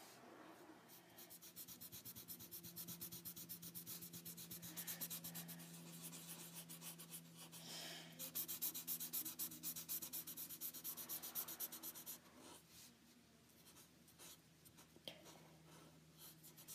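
Felt-tip Expo marker scratching on paper in quick back-and-forth colouring strokes, several a second, filling in an area with colour. The strokes grow softer after about twelve seconds.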